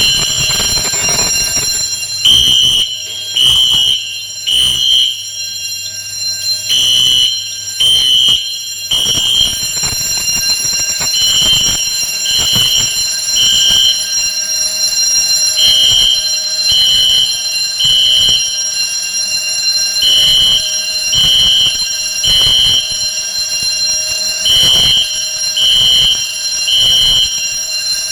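Kidde fire alarm sounder on an FM-200 suppression system under test, sounding in repeated groups of three pulses about a second apart with a longer pause between groups (the temporal-three evacuation pattern), over a continuous high-pitched tone.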